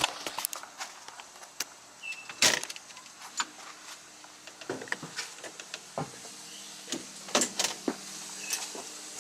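Scattered clicks and knocks of objects being handled, the loudest about two and a half and seven and a half seconds in, over a faint steady hum, with two short high chirps about two and eight and a half seconds in.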